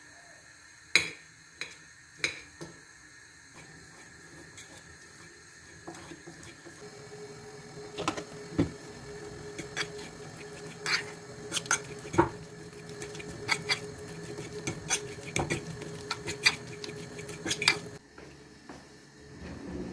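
Metal knife clicking against a ceramic plate while cutting potato, then a fork mashing potato on the plate: a long stretch of scraping with repeated clinks. It stops suddenly near the end.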